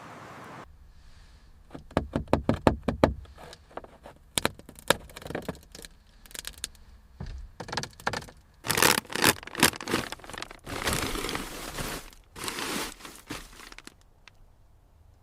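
A run of sharp clicks and knocks, loudest a couple of seconds in, followed by several longer bursts of scraping in the second half.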